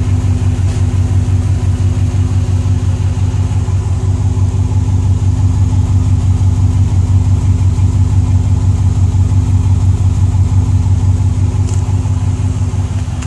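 Exhaust note of a 2008 Pontiac Grand Prix GXP's 5.3-litre LS4 V8, idling steadily through the stock exhaust's quad tips.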